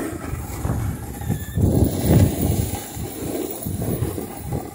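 Wind rushing over the microphone of a hand-held camera on a moving snowboarder, rumbling in uneven gusts, with the board sliding over packed snow underneath.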